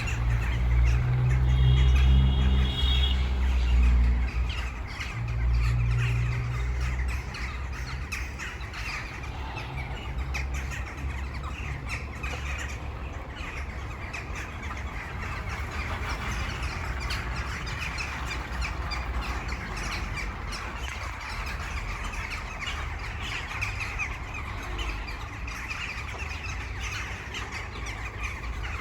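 A large flock of birds calling all at once, a dense, unbroken chatter of overlapping chirps. A low rumble sits under it in the first several seconds.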